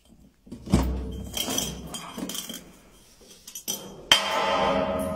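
A glass bottle knocking and clinking down metal stair steps, with a thud about a second in followed by scattered clinks. About four seconds in, a sudden louder sound with a steady pitch starts and holds to the end.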